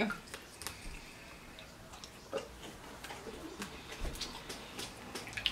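Quiet eating sounds: chewing with scattered wet mouth clicks and lip smacks, a few small clicks spaced a second or so apart.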